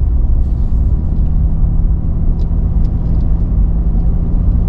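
Steady road and wind rumble from a vehicle driving at speed, with a constant engine hum underneath.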